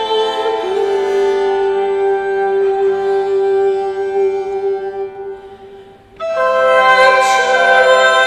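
Early-music ensemble of portative organ, viola d'arco and a woman's voice playing slow held chords. The phrase dies away about five seconds in, and a new, louder chord begins about six seconds in.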